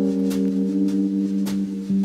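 Background music: sustained chords of held, ringing notes, with a light click beat under them.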